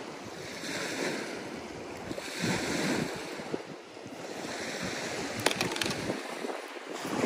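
Lake Erie waves washing onto a rocky beach, the rush swelling and falling about three times, with wind buffeting the microphone. A couple of sharp clicks come about five and a half seconds in.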